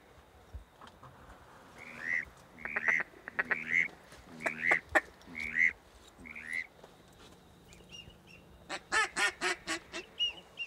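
Waterfowl calling: a series of about seven goose-like honks, then near the end a quick run of louder quacking calls.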